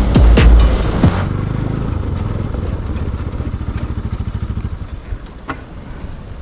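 Background music with a beat stops about a second in, leaving a motorcycle engine running at low revs with an even pulse, slowly getting quieter.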